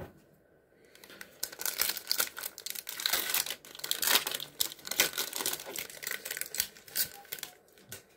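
Plastic wrapper of a trading-card pack being crinkled and torn open by hand: a dense run of sharp crackles starting about a second in and dying away shortly before the end.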